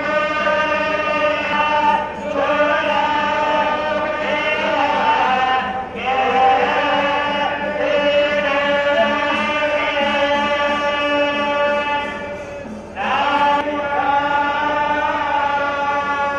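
Group of temple priests chanting Vedic hymns in unison: long sustained phrases broken by short pauses for breath, near 2, 6 and 13 seconds in.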